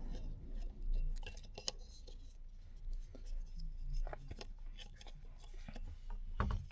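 Hands fitting a paddle shifter back onto a steering wheel: scattered small clicks, taps and rubbing of plastic and metal parts, with a louder knock near the end.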